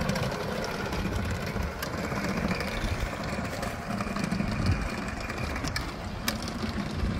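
Engine of a muck shredder machine running steadily, with a few brief clicks.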